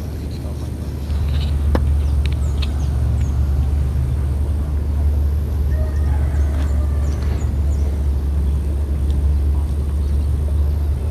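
Steady low rumble throughout, with a few faint high bird chirps and a small click just under two seconds in.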